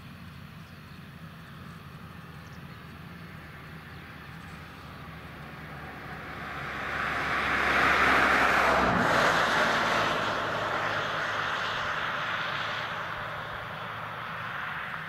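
Tractor engine running steadily as it pulls a potato planter through the field. A broad, rushing noise swells to a peak about eight seconds in and then slowly fades.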